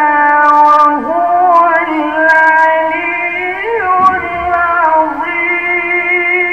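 A man reciting the Quran in the melodic mujawwad style, drawing out one long ornamented phrase with slow turns of pitch and a brief break about a second in.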